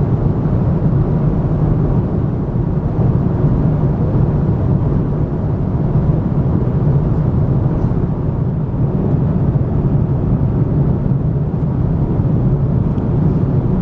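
Steady low drone inside the cabin of an Airbus A340 airliner in cruise flight.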